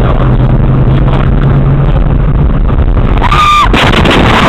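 Car cabin road and engine noise with a steady low hum, then about three seconds in a brief high squeal and a loud harsh rushing noise that carries on. It sounds like tyres skidding under hard braking just before a collision.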